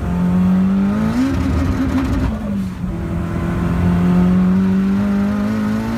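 Nissan CA18DET turbocharged 1.8-litre inline-four at high revs under hard acceleration, heard from inside the car's cabin. The engine note climbs, drops once at an upshift about two and a half seconds in, then climbs again.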